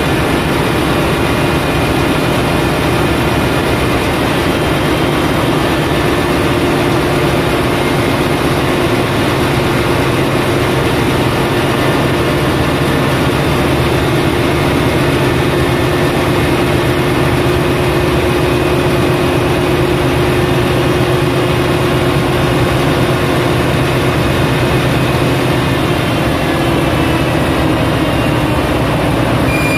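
Ship's auxiliary diesel generator engine running steadily and loudly in the engine room, being run for an overspeed trip test.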